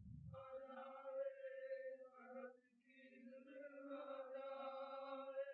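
A group of voices chanting softly in unison on long held notes, breaking off briefly about two and a half seconds in and then carrying on.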